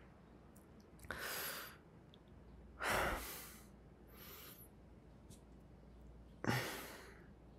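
A man breathing close to the microphone: four soft breaths and sighs, the loudest about three seconds in.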